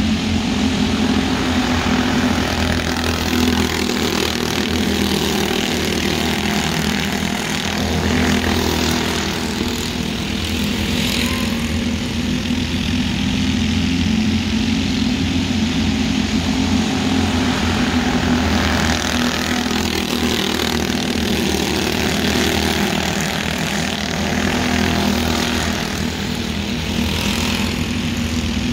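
Engines of several small open-wheel race cars running together in a steady, buzzing drone that swells and eases every few seconds as the cars pass.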